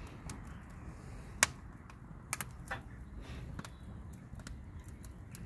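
Charcoal and wood burning in a barbecue, crackling with irregular sharp pops; the loudest pop comes about one and a half seconds in.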